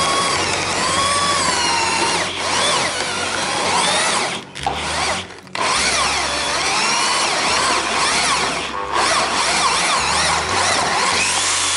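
Electric drill driving an old Soviet cast-iron hand meat grinder through its handle bolt, grinding meat and onion. The motor whines with a pitch that wavers as the load changes, and it drops out briefly twice about halfway through.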